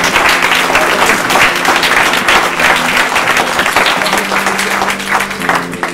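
Audience applauding, the clapping thinning out near the end, over a steady held note of background music.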